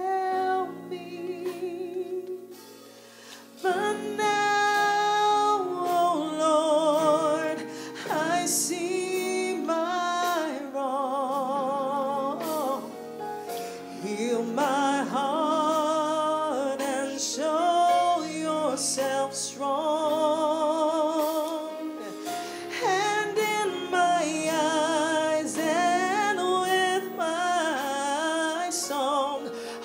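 A woman singing a slow worship song with wide vibrato over sustained chords from a Yamaha MOXF8 synthesizer keyboard. The voice breaks off briefly about three seconds in, then carries on.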